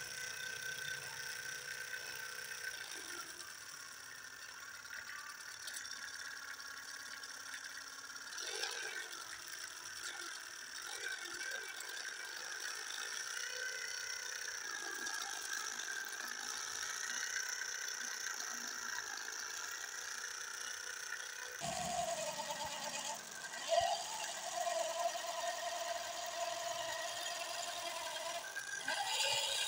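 Small electric motor of a toy tractor running with a steady high whine as its wheels spin in sand. About 22 s in, a second, lower-pitched motor whine joins it.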